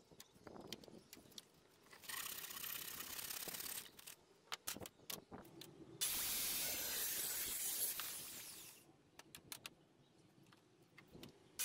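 Electric circular saw cutting through pallet wood. There are two cuts: a short one about two seconds in, and a louder one starting suddenly about six seconds in that lasts nearly three seconds and trails off. Clicks and knocks from handling the wood fall in between.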